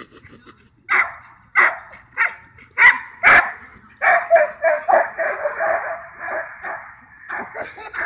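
Dog barking: about five sharp, separate barks, then a dense run of rapid yelping barks and whines from about four seconds in.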